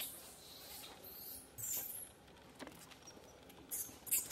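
Scattered faint rustles and clicks, several short ones spread across a few seconds.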